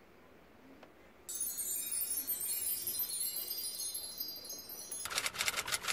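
Twinkling magic-sparkle chime sound effect: a high, dense tinkling that starts suddenly about a second in, followed near the end by a quick rattle of rapid strokes.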